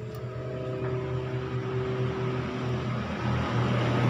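A steady motor hum, like an engine running, growing gradually louder.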